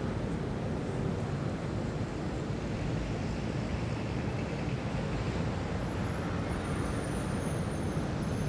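Steady low rumble of distant city traffic, a city-at-dawn ambience, with faint thin high-pitched tones coming in during the last few seconds.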